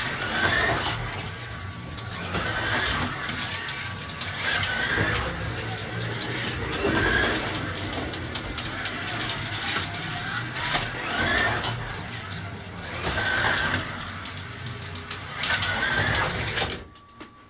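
Carrera Digital 132 slot car lapping the track: a whine from its small electric motor swells and fades as it passes, about every two seconds, with clicking from the car running along the slot and rails.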